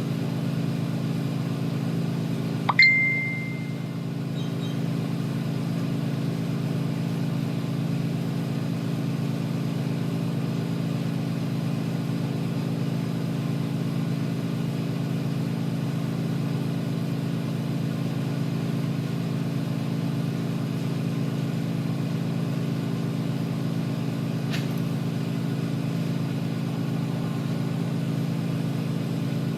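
Steady hum of a running motor in a neon bending workshop, even throughout. About three seconds in comes a sharp click with a short, high ringing ping, and a fainter click comes near the end.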